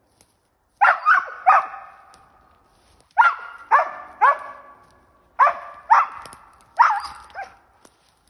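A laika barking up into the pines: about ten sharp barks in three bunches of three or four, with short pauses between, each bark ringing on briefly after it. It is the treeing bark a hunting laika gives at a squirrel in a tree.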